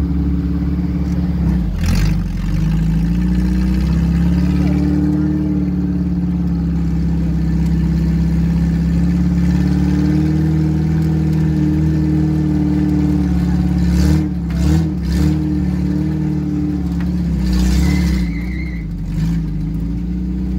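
Off-road vehicle engine running at low revs, a steady hum whose pitch drifts up and down a little. A few short knocks come about two-thirds of the way in.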